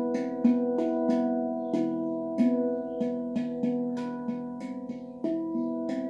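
Handpan played with the fingers: a flowing run of struck notes, about three a second, each ringing on and overlapping the next, with the low notes strongest.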